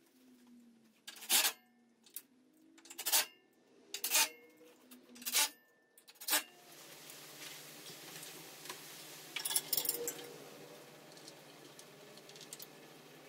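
Hand work on metal parts: about six sharp metallic clinks and clanks, each with a short ring, spaced roughly a second apart. After that a steady background hum and hiss take over, with a few faint rattling clicks partway through.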